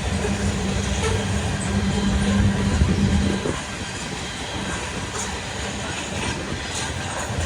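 Freight train rolling past: a steady low diesel engine drone for the first half, which drops away about three and a half seconds in, leaving the rolling of freight cars on the rails with scattered clicks.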